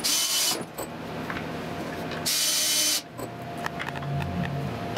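Makita cordless drill/driver running in short bursts to drive screws into the wooden Z-axis parts. Two runs of well under a second each come near the start and about two seconds in, and a third begins at the very end, with handling and clicks of the parts between.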